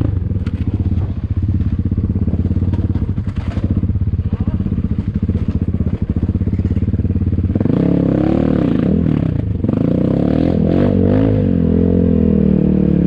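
ATAKI DR 250 enduro motorcycle engine running at low, steady revs. About two-thirds of the way through it gets louder and revs up and down.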